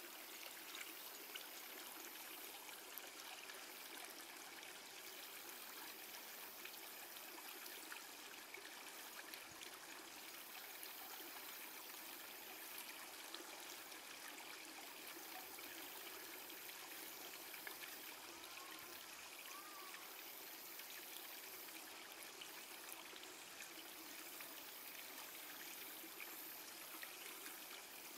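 Faint, steady outdoor background hiss with no distinct events.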